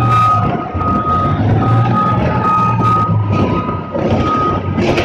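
Reversing alarm of a large mining haul dump truck beeping steadily, about twice a second, over the low running of its diesel engine: the truck is backing up to tip ore into the crusher.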